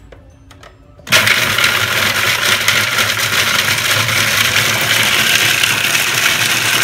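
Food processor motor switched on about a second in and running steadily at speed, its blade grinding rolled oats and almonds into a fine meal.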